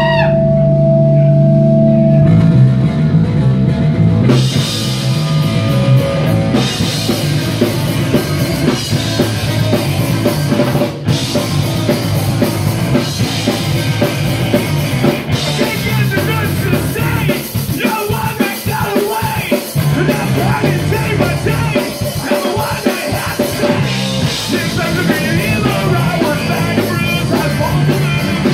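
Live punk rock band playing at full volume: drum kit, electric bass and electric guitar, with held low notes before the full band comes in a few seconds in, and singing over the second half.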